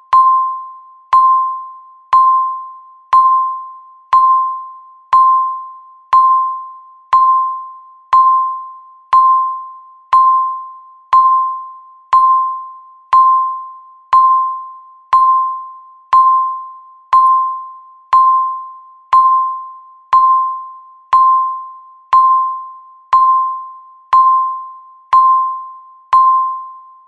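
Countdown timer beep: a single mid-pitched electronic tone that starts sharply and fades, repeated once a second to mark each second left.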